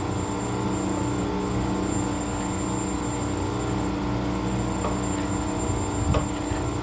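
An engine running steadily at an even speed, with a few light clicks or knocks near the end.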